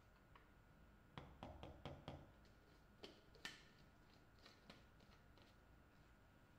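Faint taps and clicks of a spoon and a plastic shaker cup being handled: a quick cluster about a second in, then a few single clicks.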